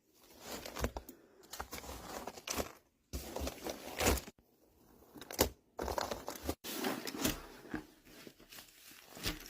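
Rustling and crinkling of paper or plastic being handled, with light sharp clicks, in short stretches that break off abruptly several times.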